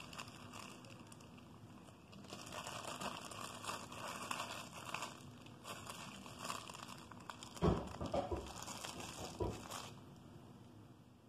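Plastic zip-top bag of icing crinkling as it is twisted and squeezed by hand, with a few dull knocks near the end.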